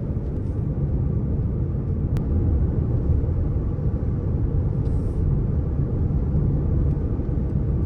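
Car driving at speed, a steady low rumble of tyre and engine noise, with a single faint click about two seconds in.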